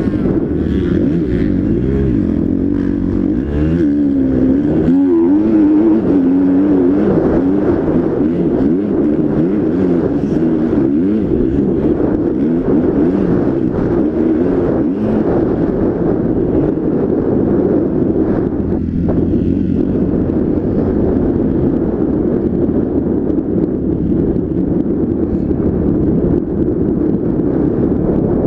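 Motocross bike engine running hard on track, its pitch rising and falling as the rider works the throttle and gears.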